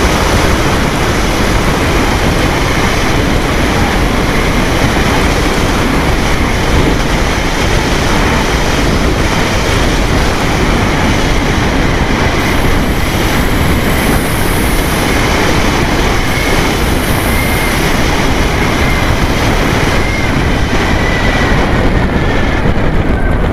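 Onboard sound of a radio-controlled seaplane in low flight over a river: a loud, steady rush of propeller and wind noise on the plane's own camera microphone.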